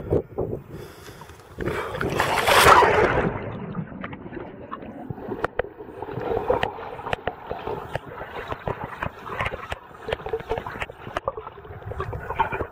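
A splash as the camera plunges into the lake water about two seconds in, then the muffled sound of water heard through the submerged camera, with scattered clicks and gurgles.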